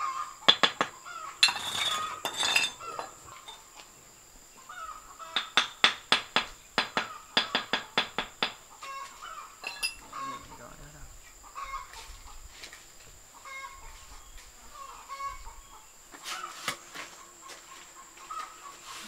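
Chickens clucking now and then. Two runs of sharp taps, the second at about four a second, fit bricks being tapped down into their mortar bed.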